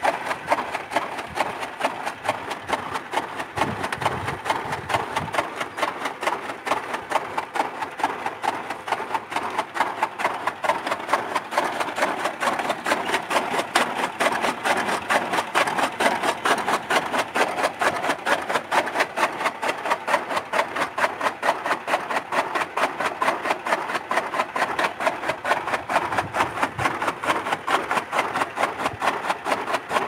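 Electric chaff cutter chopping green fodder grass: the motor runs steadily while the blades cut the fed stalks in a rapid, even chatter of cuts.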